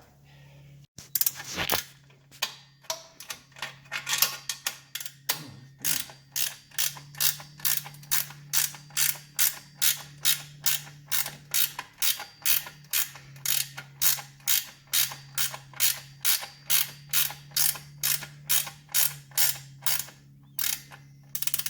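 Ratchet wrench clicking as it is swung back and forth to run in an exhaust mounting bolt, snugged but left loose. A few uneven clicks at first, then a steady run of about two clicks a second.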